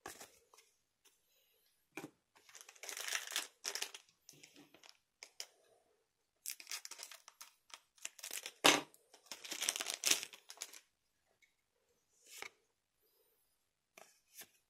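A foil trading-card booster pack being torn open and its wrapper crinkled, in several rustling bursts, with one sharp, loud crackle about nine seconds in.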